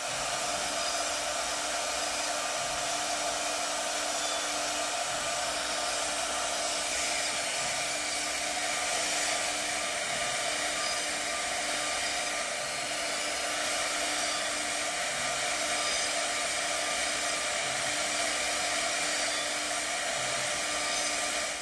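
A workshop machine running steadily: an even whirring hiss with a few steady hum tones and no change in pace.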